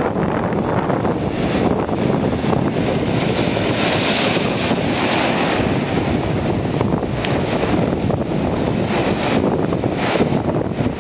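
Sea surf breaking and washing over rocks in a continuous rush, with a louder surge about four seconds in. Wind buffets the microphone throughout.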